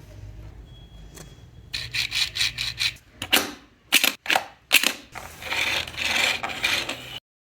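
3D-printed plastic auto-folding toy car being worked by hand: plastic parts rubbing and scraping against each other. It starts with a run of quick strokes, then several separate louder scrapes, then a longer continuous rasp that cuts off abruptly near the end.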